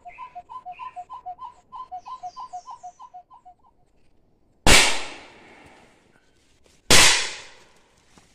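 A rhythmic two-note whistled call repeats about three times a second, then stops. About a second later a long gun fires two loud shots roughly two seconds apart, each shot echoing briefly through the forest.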